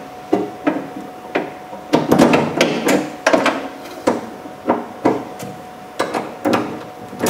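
Ratchet and 10mm socket tightening the bolts of a car door's exterior handle, clicking in short irregular strokes about two or three times a second, echoing slightly inside the door shell.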